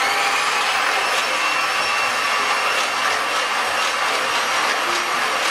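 Electric hand mixer running steadily at speed, its twin beaters whisking eggs into creamed margarine and sugar in a glass bowl.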